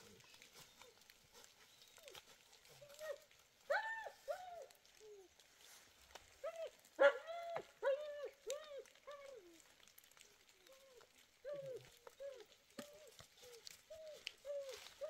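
An animal calling again and again: many short calls, each rising and falling in pitch, in clusters with short gaps, the loudest about seven seconds in.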